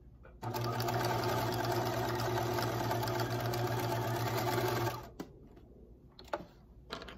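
Bernina sewing machine running steadily while sewing a line of top stitching through fleece. It starts about half a second in and stops about five seconds in, followed by a few light clicks and taps.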